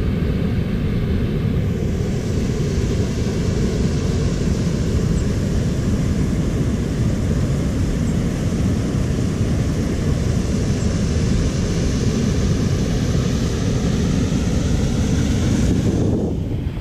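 Steady rushing of river water spilling over a low weir, heavy in the low rumble.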